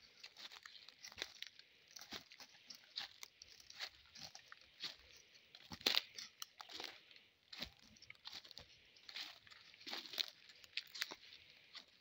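Footsteps crunching through dry leaf litter on a forest trail: irregular crunches, about two a second, with one louder crunch about halfway through.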